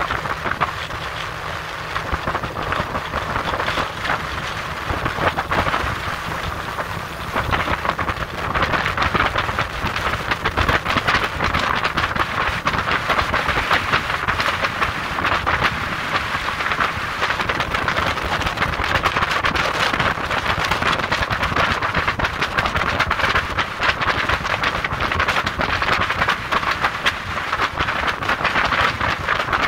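Small skiff running across open water: a steady rush of wind buffeting the microphone and water along the hull, over the low drone of the boat's motor.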